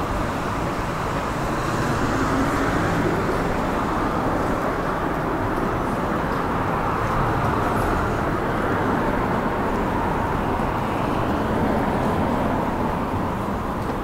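Road traffic noise: cars driving along the street beside the sidewalk, a steady tyre-and-engine hiss that swells a little about two seconds in.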